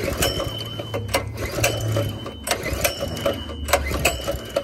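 Baja Warrior mini bike's small single-cylinder engine running with a steady low hum, with sharp clicks and rattles about twice a second and a high steady whine that comes and goes.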